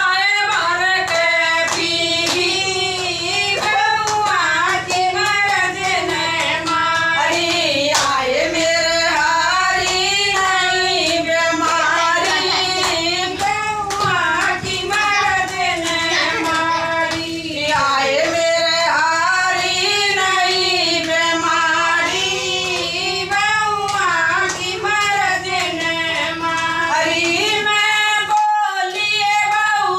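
Women singing a Hindu devotional bhajan, with hand-clapping keeping time.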